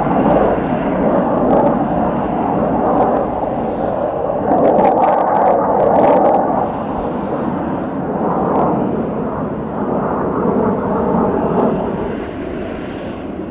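Jet engine noise from USAF F-15 fighters on the airfield: a steady, rushing drone that swells and eases a little and drops off near the end.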